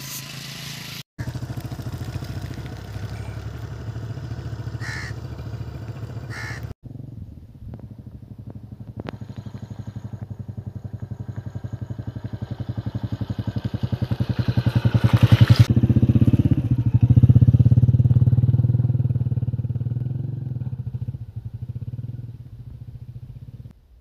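Small motorcycle riding along a stony dirt track. Its engine grows steadily louder as it approaches, passes close about two-thirds of the way through, then fades as it rides away.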